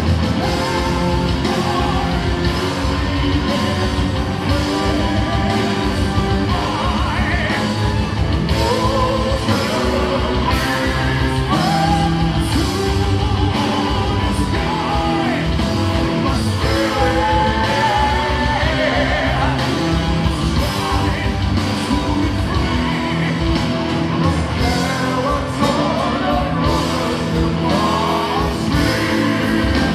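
Symphonic metal band playing live in a large hall: heavy metal with drums, guitar and a singer holding long sung notes, heard from among the audience.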